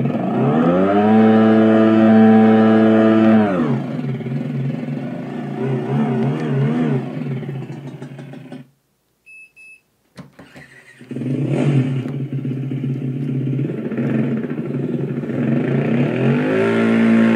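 Universal e-bike sound generation module playing a simulated motorcycle engine through its small speaker, driven by a throttle pedal. It revs up, holds high for a few seconds, then drops back to an unsteady idle. The engine sound then cuts out for about a second and a half, with two short beeps in the gap, before starting again, idling and revving up near the end.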